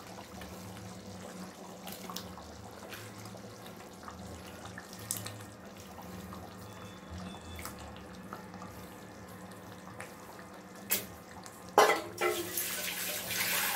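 Tamarind curry bubbling at a boil in a clay pot over a gas burner, with a steady low hum beneath. Near the end comes a sharper knock and a short stretch of louder hissing noise.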